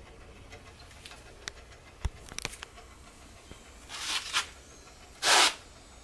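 Quiet low hum with a few soft clicks and short rustling scuffs from footsteps and camera handling, the loudest a brief hiss-like scuff about five seconds in.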